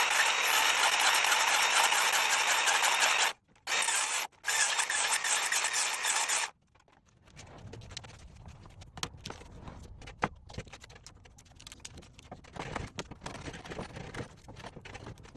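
Circular saw with its blade set to 3/4-inch depth cutting into wood, in three runs with two short breaks, then stopping about six and a half seconds in; light knocks and taps follow.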